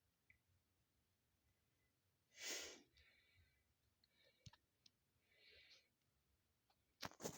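Mostly near silence, broken by a single breathy exhale about two and a half seconds in, faint rustles, and a few sharp clicks near the end.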